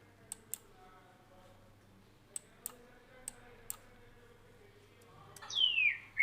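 Computer mouse clicking, six short sharp clicks in pairs over the first few seconds. Near the end a loud whistle falling in pitch, the start of a bird-call recording being played back.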